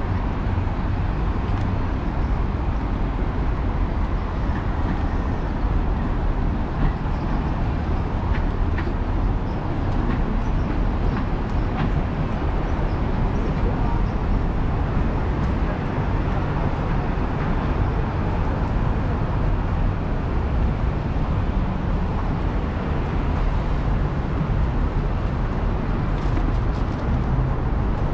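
Steady city street noise in the rain: traffic and the hiss of rain and wet road over a constant deep rumble, with no single event standing out.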